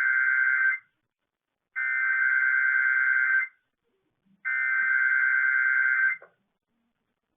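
Emergency Alert System SAME header: three bursts of harsh, buzzing digital data tones, each about a second and a half long with a short gap between them, sent to trigger the EAS decoders.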